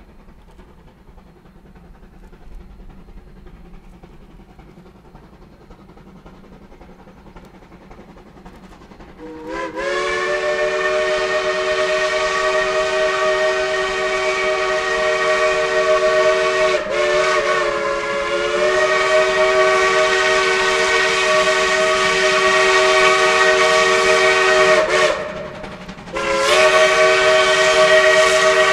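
Shay geared steam locomotive's chime whistle blowing a chord of several notes: a faint low rumble, then about ten seconds in one long blast of about fifteen seconds that wavers briefly partway through, a short break, and a second blast near the end.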